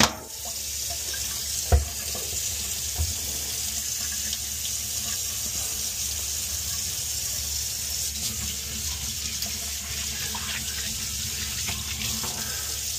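Faucet running steadily into a stainless steel sink while hands wash a clogged boiler condensate float under the stream. A sharp knock sounds about two seconds in, with lighter knocks around it.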